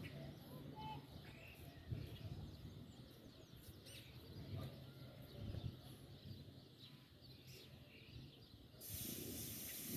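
Faint outdoor ambience: a few short bird chirps over a low background rumble, with a hiss coming in near the end.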